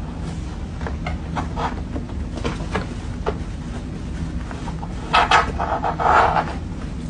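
Scattered knocks and clatter over a steady low hum, busiest about five to six and a half seconds in.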